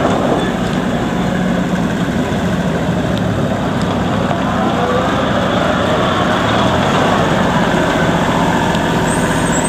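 The Kubota L35 tractor loader backhoe's 35 HP Kubota diesel engine running steadily, with slight shifts in pitch.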